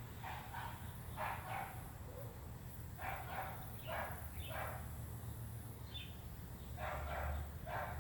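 A dog barking in short runs of two or three barks, several times over, with a steady low hum underneath.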